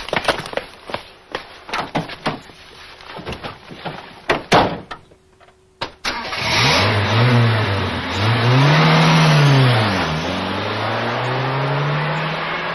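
A run of sharp knocks or footsteps for about six seconds, a moment of near silence, then an engine starts abruptly and revs up and down several times over a steady hiss.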